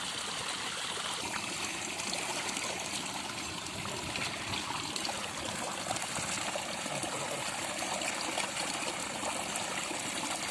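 Shallow water running and trickling steadily.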